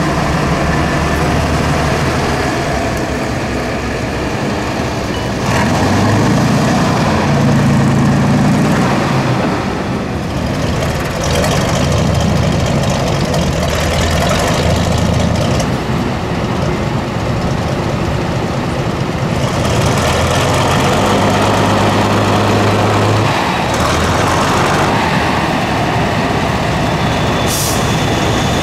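Tatra 8x8 trial truck's diesel engine working hard under load in deep mud, its revs rising and falling in three longer surges.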